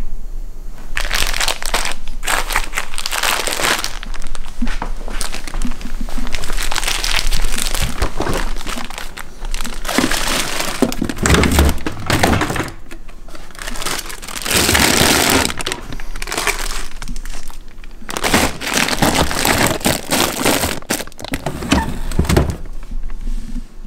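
Plastic zip-top bags crinkling as they are handled, in several stretches with short pauses, along with thunks from a freezer drawer being handled.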